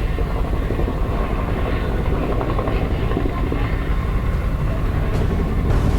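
Chinook twin-rotor helicopter in flight: a steady low rumble from the rotors, with a fast pulsing beat from the blades.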